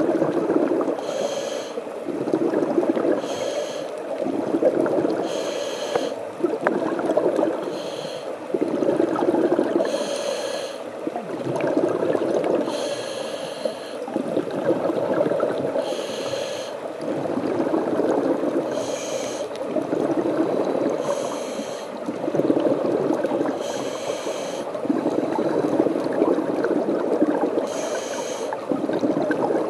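Scuba diver breathing through a regulator underwater: a short hissing inhale every two to three seconds, each followed by a longer rumble of exhaled bubbles.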